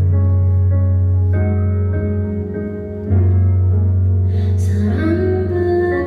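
Slow live ballad accompaniment: held keyboard chords over a deep bass note, moving to a new chord about three seconds in. A woman's singing voice comes in near the end.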